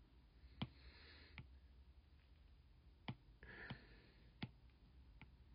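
About six faint, sharp taps of a stylus on a tablet's glass screen, spaced unevenly.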